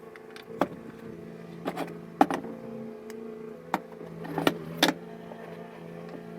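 Small electric motor running with a steady hum, with a handful of short, sharp knocks and clicks; the loudest comes about two seconds in.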